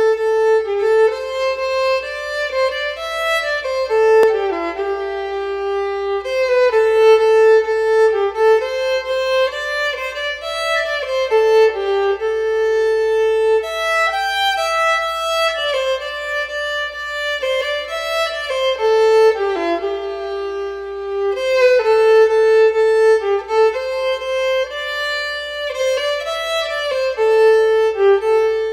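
Background music: a violin playing a melody of held and changing notes.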